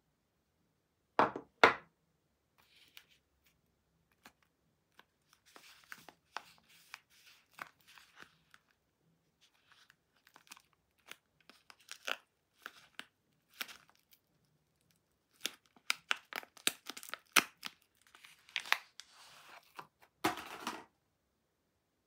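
Two sharp knocks about a second in, as a bar of soap is set down on a wooden tabletop. Then the purple wrapper of a Lux soap bar crinkles and crackles as fingers pick at it and peel it open, ending in a louder tearing rustle near the end.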